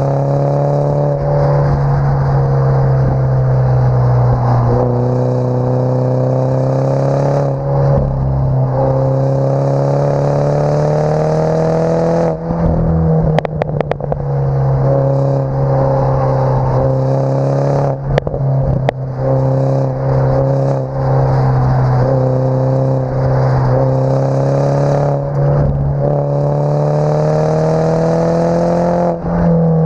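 F56 Mini Cooper S turbo four-cylinder through an Invidia Q300 cat-back exhaust, recorded at the tailpipes while driving. The exhaust note climbs slowly in pitch and then drops again several times as the car pulls and shifts or lifts. It sounds muffled through the camera's waterproof housing, with a few brief clattering noises around the middle.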